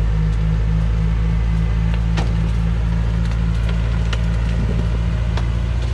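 Heavily loaded timber truck's diesel engine running steadily under load in mud, a loud, even low drone, with a few sharp wooden knocks.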